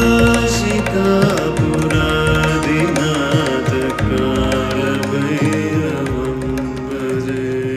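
Indian devotional music: sustained instrumental notes over hand-drum strokes.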